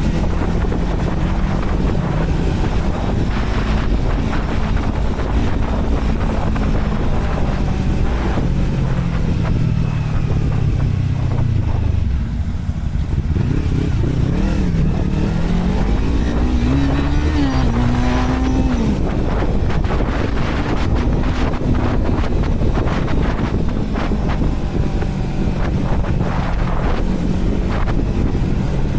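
Yamaha R3 parallel-twin engine running loud through a WR slip-on exhaust with the dB killer removed. Its pitch drops about ten seconds in, then climbs and falls through the revs a few seconds later before settling, with wind buffeting the microphone.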